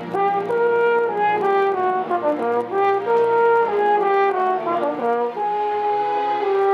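Live orchestra playing, with a brass instrument carrying a melody in long held notes over the strings.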